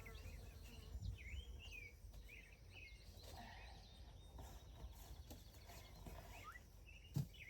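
Faint birdsong, a scatter of short chirps and whistles, over a low steady rumble, with one short knock near the end.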